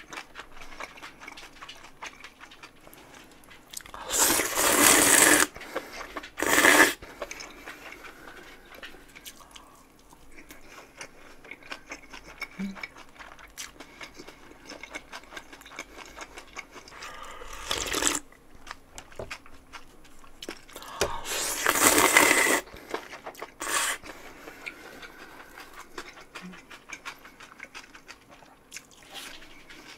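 Close-miked eating sounds: loud slurps of cold naengmyeon noodles and broth. There are two long slurps, about four and about twenty-one seconds in, each followed by a shorter one, plus another short one near eighteen seconds, with quiet chewing in between.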